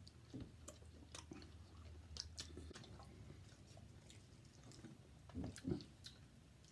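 Faint, close-up chewing of a fast-food burger: soft wet clicks and smacks of a mouth eating, with two louder mouth sounds about five and a half seconds in.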